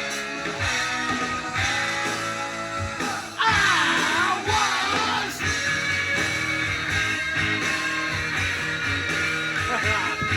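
Hard rock song playing from a vinyl record: electric guitar and drums on a steady beat, with a sung line about three and a half seconds in that is the loudest part.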